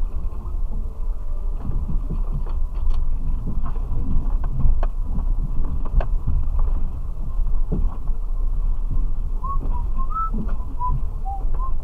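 In-cabin sound of a Suzuki Jimny crawling over a rutted, muddy off-road track: steady low engine and drivetrain rumble with scattered knocks and rattles as it goes over bumps. A few short high squeaks come near the end.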